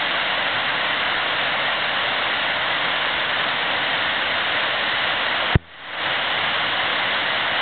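Steady rush of river water, an even hiss. About five and a half seconds in there is a sharp click, the sound drops away, then fades back up within half a second.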